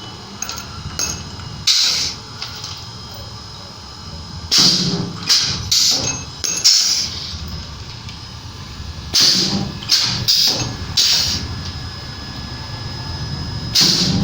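Welding: a series of short spot welds, each a brief crackling burst under a second, coming at irregular gaps over a steady low hum.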